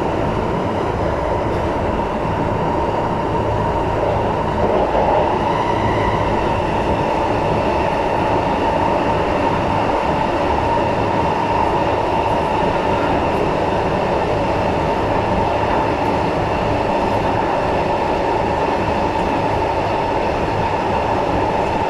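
SMRT metro train running steadily between stations, heard from inside the carriage: a constant rumble of wheels on track with a steady whine over it.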